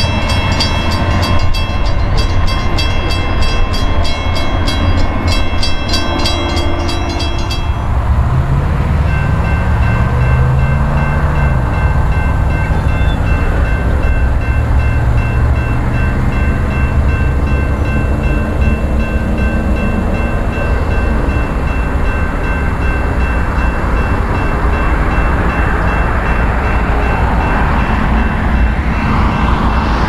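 Railroad crossing warning bells ringing over a steady low rumble of a train. About eight seconds in the fast, bright ringing gives way to a different, steadier bell tone.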